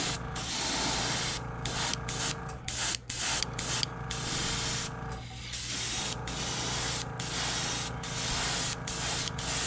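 Airbrush spraying a white base coat at about 25 to 30 PSI: a hiss of air and paint in bursts of a second or so with short breaks between, over a steady low hum.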